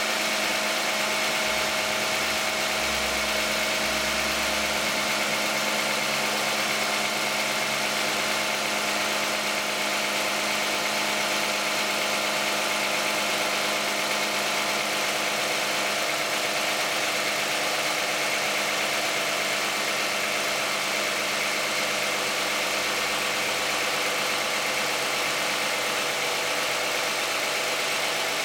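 2010 Toyota Camry 3.5 V6 engine idling steadily with the hood open, soon after a cold start. It is fairly quiet for an engine with 93,000 miles on it, running on 5W-30 synthetic oil.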